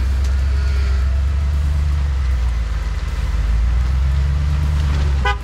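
Off-road vehicle driving, a loud steady low rumble. A short pitched tone, like a horn toot, sounds right at the end.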